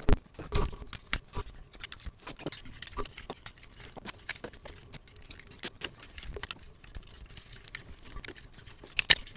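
Hard plastic parts of a Transformers Studio Series Grimlock action figure clicking and tapping as it is handled: many small, irregular clicks, with a louder click near the end.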